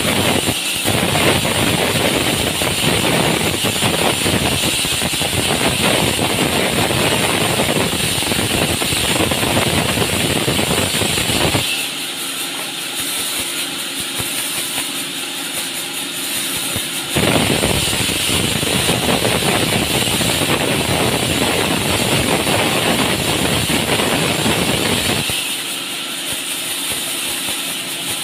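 Vertical band saw in a sawmill cutting a log lengthwise: a loud dense sawing noise over the machine's steady hum. The cut stops about twelve seconds in, leaving the saw running free, starts again about five seconds later for about eight seconds, and stops again near the end.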